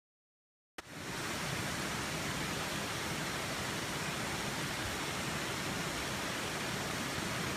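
Mountain stream water rushing in a steady, even wash; the sound cuts in suddenly a little under a second in, after dead silence.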